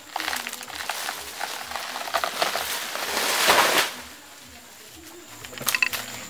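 A cut banana plant being pushed over and falling: a rush of splitting stem and swishing leaves builds to a crash about three and a half seconds in, then dies away. A few sharp cracks and clicks follow near the end.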